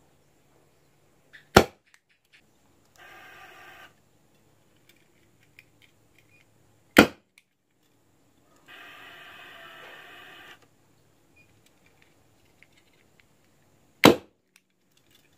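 Three sharp single cracks from a homemade PVC combustion chamber rigged with a piezo igniter. The second comes about five seconds after the first and the third about seven seconds later. Between them, a drawn-out pitched call sounds twice, each lasting a second or two.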